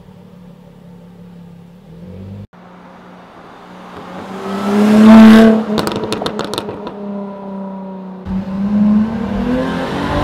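Jaguar F-Type V6 S's supercharged 3.0-litre V6 and its exhaust: running low at first, then revving up hard to its loudest about five seconds in, followed by a quick string of sharp crackles and pops as the throttle is lifted. Near the end the engine note climbs again under acceleration.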